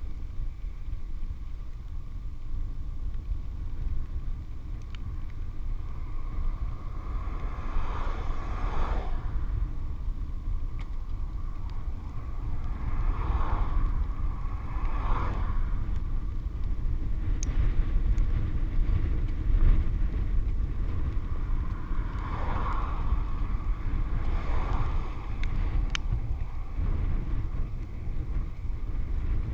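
Wind buffeting a handlebar-mounted action camera as a bicycle rolls along a paved road, with a faint steady whine under it. Cars pass in the other lane several times, each swelling and fading: about a third of the way in, around the middle, and about three quarters of the way through.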